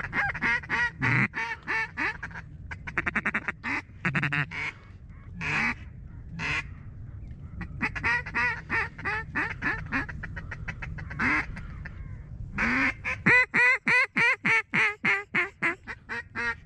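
Mallard duck calls blown by hunters to work ducks that are coming in. There are strings of quacks throughout, a fast feeding chatter about three seconds in, and a loud string of quacks near the end.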